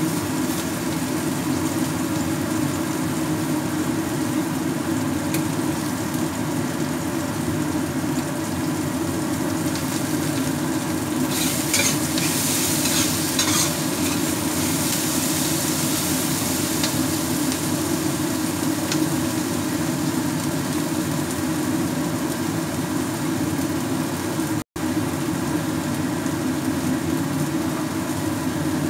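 Chopped ingredients frying in hot oil in a wok and being stirred with a metal spatula. The sizzle swells for a few seconds about eleven seconds in, over a steady low hum. The sound cuts out for an instant near the end.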